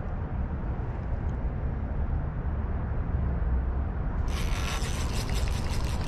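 A steady low rumble, then about four seconds in a spinning reel being cranked: a dense, rapid rattle of clicks.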